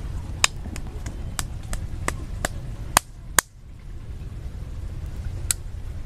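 A run of small, sharp clicks, about three a second, from hands working bait and line at the hook. Two louder clicks come about three seconds in, the background dips briefly, and a last click comes near the end, over a steady low rumble.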